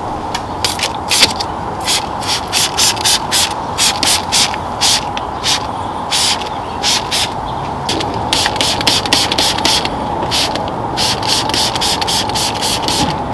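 Hand trigger spray bottle misting a dressing over engine-bay plastics: many short hissing squirts in quick succession, with a brief lull in the middle.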